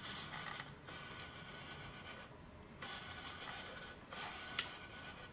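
KST X06H micro servo driven by a servo tester, whirring faintly in about four short runs as it drives the V-tail control surface back and forth through its string linkage, with a single sharp click near the end.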